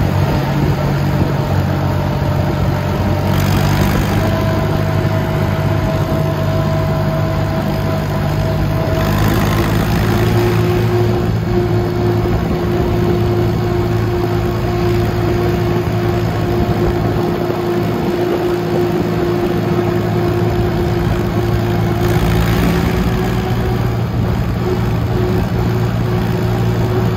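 Vintage tractor engine running steadily while the tractor drives along, heard close from on board as a continuous drone. Its note changes slightly about four seconds in and again about ten seconds in.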